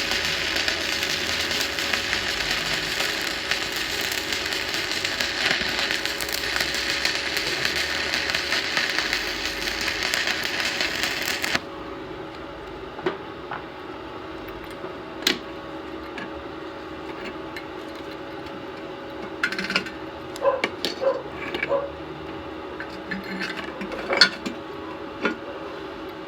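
Shielded metal arc (stick) welding arc crackling and hissing steadily as the electrode burns along a square butt joint in thin sheet steel, stopping abruptly about eleven seconds in. After it, a few scattered metallic taps and knocks.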